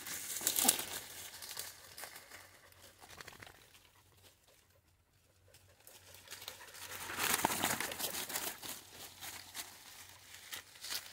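Dry leaves and twigs rustling and crackling close to the microphone. It dies down about halfway through and picks up again a couple of seconds later.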